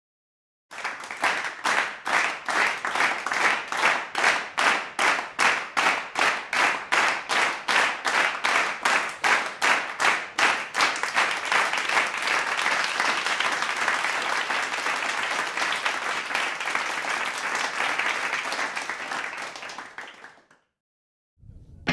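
A crowd clapping together in time to a steady beat, then breaking into continuous applause about halfway through, which fades away near the end.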